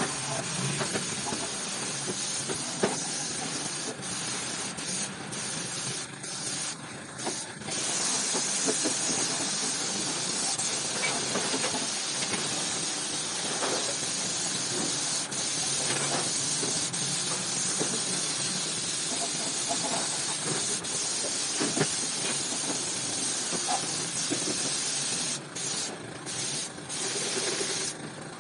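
Compressed-air paint spray gun hissing steadily as it sprays, with a few short breaks in the hiss about a quarter of the way in and again near the end.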